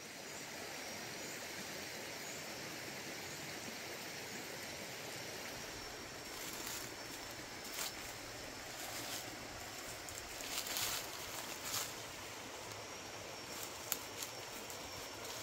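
Steady rushing of a forest stream. From about six seconds in it is broken by short crackles and snaps of leaves and twigs as someone pushes through the undergrowth on foot.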